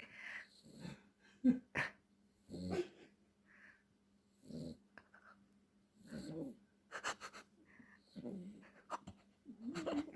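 Dachshund snoring in short, irregular bursts about once a second, some with a wavering pitch, over a faint steady hum.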